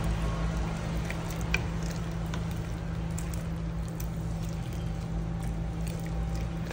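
Wooden spoon stirring a thick pot of red beans, meat and diced potato, wet stirring sounds with a few light clicks, over a steady low hum.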